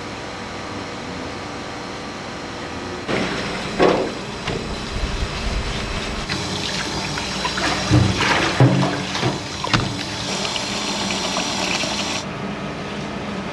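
Water running from a kitchen tap, turned on about three seconds in and off near the end, with several knocks and clatters of kitchen utensils over a steady hum.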